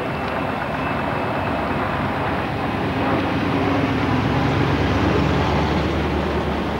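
Engine of a vintage fire engine running as it drives past close by, growing louder as it passes a few seconds in, with another old vehicle's engine approaching behind it.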